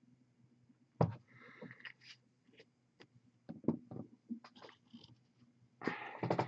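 Small clicks and knocks of objects being handled on a painting desk: a sharp knock about a second in, scattered clicks in the middle and a quick cluster of clicks near the end.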